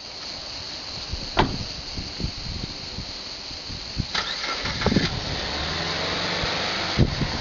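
A car engine starting and running, with a few sharp knocks and clunks; a steady low running hum settles in about halfway through.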